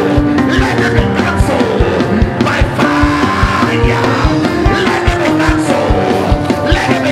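Live church praise band playing loud, fast music: a steady drum beat under held keyboard chords and guitar, with voices singing over it.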